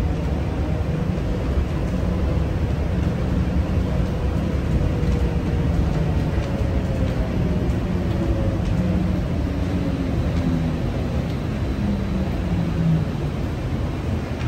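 Inside the cabin of a Bukit Panjang LRT C801B train, a rubber-tyred Bombardier Innovia APM 300R people mover, running with a steady rumble. From about six seconds in, a motor whine falls in pitch as the train slows into a station.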